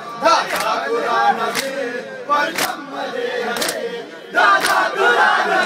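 Shia matam: men chanting a mourning lament in chorus, with their hands slapping their chests in unison about once a second. A little past four seconds the crowd's chant rises louder.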